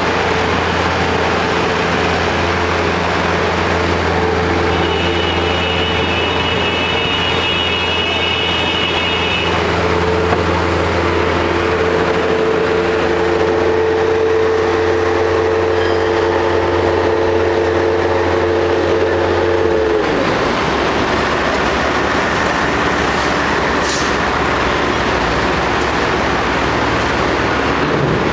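A heavy construction machine's engine running steadily with a whine, then winding down about two-thirds of the way through. Steady road traffic noise carries on throughout.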